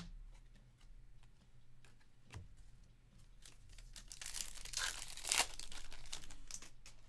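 Foil wrapper of a Topps Stadium Club baseball card pack tearing open and crinkling, loudest from about four to six seconds in, after a few light clicks and taps of handling.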